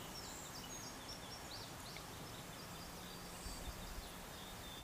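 Outdoor field ambience: a steady faint hiss with several birds singing, a string of short high chirps and quick whistled sweeps. A brief low thump about three and a half seconds in.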